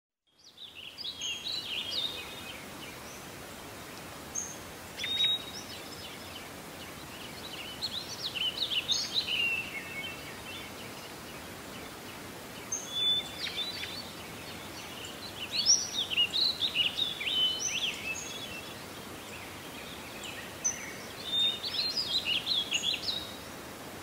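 Songbirds singing in woodland: short, rapid high-pitched song phrases every few seconds over a steady background hiss.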